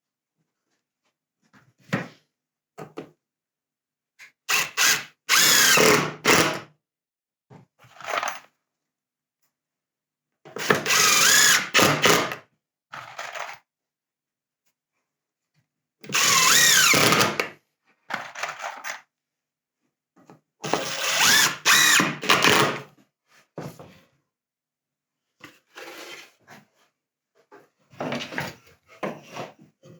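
Cordless impact driver driving screws into wood in four runs of about two seconds, each motor whir shifting in pitch, with shorter whirs and knocks of handling the boards between.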